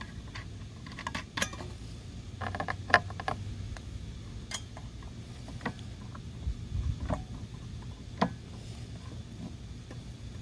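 Allen wrench clicking and clinking against the arbor bolt of a cordless circular saw as the blade bolt is tightened: scattered sharp metal clicks, with a quick cluster of them about three seconds in.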